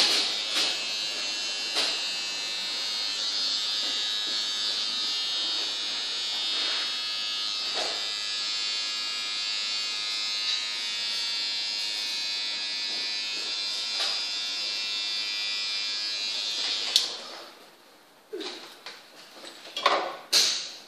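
A small electric motor appliance whirs steadily with a high whine, then switches off abruptly about seventeen seconds in. A few light clicks and taps follow.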